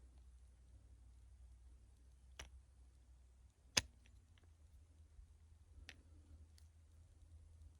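A few sharp mechanical clicks from a .22 PCP airgun's folding suppressor being worked, the loudest about four seconds in, over a low steady hum.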